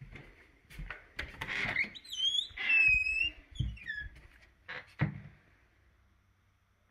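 An interior door is opened: the latch handle rattles, then the hinges squeak in a few bending, wavering whines as the door swings open. There are a couple of dull thumps, footsteps on carpet, around three and a half and five seconds in.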